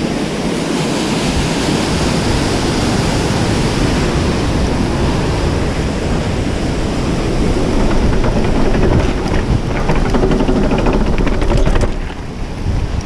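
Rushing mountain creek and wind buffeting a helmet-mounted action camera's microphone as a mountain bike rolls across a steel-grating footbridge. Rapid rattling clicks from the bike on the metal grating build up in the later part, and the sound eases a little once the bike is back on the dirt trail near the end.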